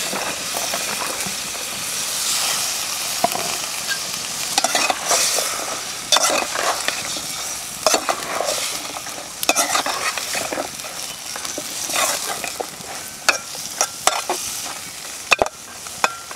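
Flat green beans frying in oil and spice paste in a metal pot, sizzling while a metal spatula stirs them, scraping and clicking against the pot again and again.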